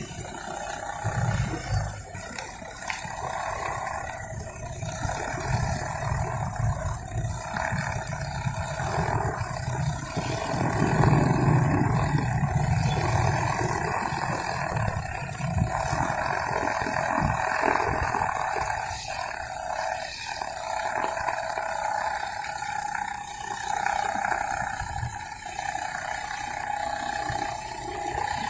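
Four-stroke Honda GX35 brush cutter running at cutting speed, its engine note held steady with slight wavering as the nylon trimmer line cuts grass.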